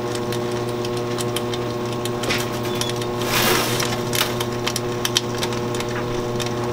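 Chocolate enrober running: a steady machine hum with scattered light clicks and ticks, and a brief hiss about halfway through.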